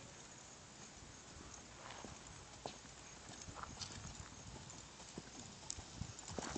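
Hoofbeats of a ridden horse moving over a dirt arena surface: irregular dull thuds.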